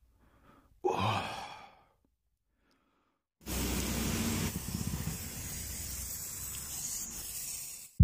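A brief whoosh sound effect about a second in, then from about three and a half seconds a steady hiss of an aerosol spray can being sprayed onto a bike frame.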